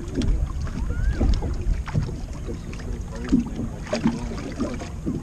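Wind buffeting the microphone on a drifting bass boat, with small waves slapping and knocking irregularly against the hull.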